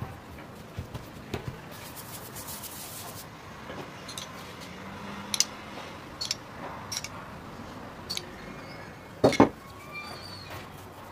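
Kitchen handling noises while melted butter is poured over stacked dough sheets and brushed on: a brief hiss, a few sharp clicks and taps, and two loud knocks close together near the end.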